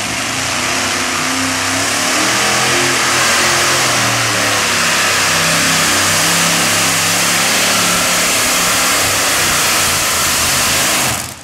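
Multi-engine modified pulling tractor's supercharged engines revving up and running at full power as it launches and pulls the weight sled down the track. The sound builds over the first couple of seconds, stays loud and steady, and cuts off suddenly near the end.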